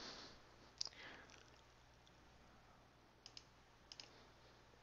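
A few faint computer-mouse clicks over a quiet background hum: a single click about a second in, then two quick double clicks near the end.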